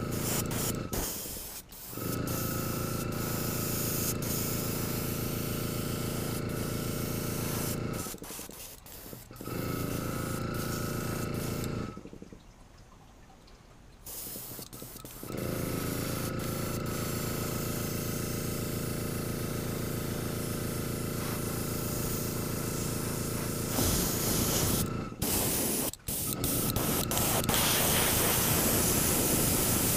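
Airbrush spraying paint with a hiss over the steady hum of its air compressor. The sound drops away briefly twice, and once for about three seconds near the middle. The spray hiss is strongest near the end.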